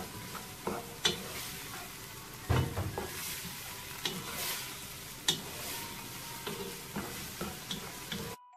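Wooden spatula stirring and scraping diced carrots, peas and chicken around a stone-coated frying pan, with irregular knocks of the spatula against the pan over a soft, steady sizzle on low flame. The sound cuts off suddenly near the end.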